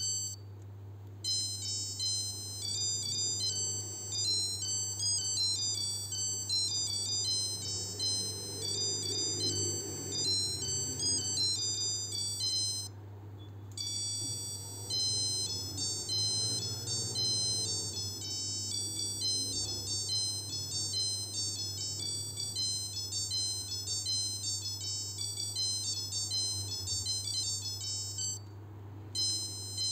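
Melody alarm of a 1980 Casio H-104 watch (module 82) playing high, beeping electronic tunes through its tiny piezo buzzer. The tunes run back to back, each about 14 s long, with short pauses about a second in, about thirteen seconds in and near the end.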